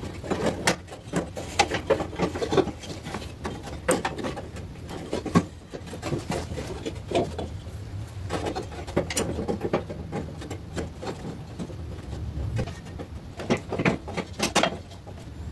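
Hands fitting a toothed V-belt around the pulleys inside a steel garden-tractor frame: irregular clicks, knocks and the rub of rubber belt on metal, over a low steady hum.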